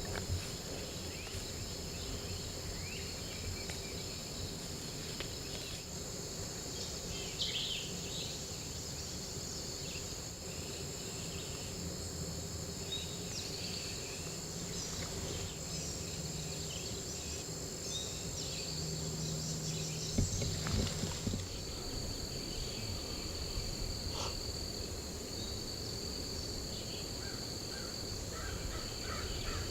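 Spring woodland ambience: insects trill steadily in two high tones, with scattered short songbird calls over a low steady hum.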